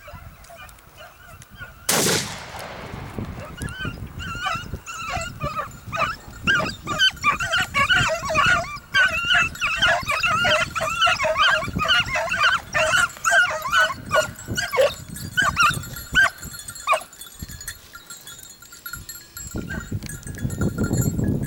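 A single shotgun shot about two seconds in, then hunting hounds baying and yelping rapidly and excitedly for about twelve seconds as they run in on the hare, dying away after about seventeen seconds. A rising scuffling rustle follows near the end as the dogs reach the hare.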